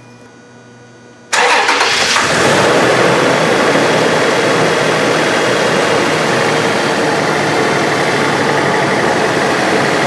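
A 2014 Toyota 4Runner's V6 engine started about a second in: a brief crank, then a steady idle. It runs with a cylinder 4 misfire that the technician puts down to an injector giving no fuel flow.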